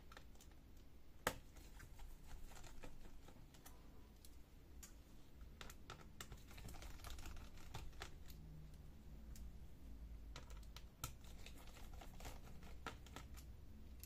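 Faint scattered clicks and taps of a laptop's metal hard-drive cover plate and its small screws being handled and lifted out of the chassis, with one sharper click about a second in.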